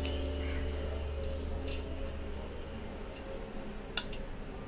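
A steady high-pitched whine, with a low hum fading out in the first half and a single light click about four seconds in.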